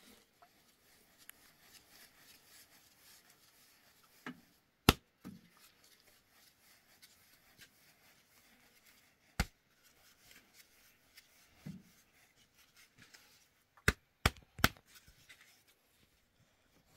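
Five sharp knocks over faint rustling and handling: one loud knock about five seconds in, another a few seconds later, and three close together near the end.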